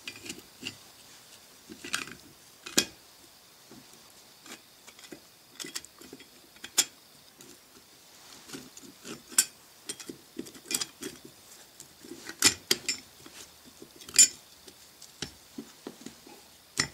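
Steel gears and clutch parts of a 1950s GM Eaton limited-slip differential clicking and clinking against the carrier as they are worked into place by hand. The clicks come irregularly, with a few sharper knocks spread through.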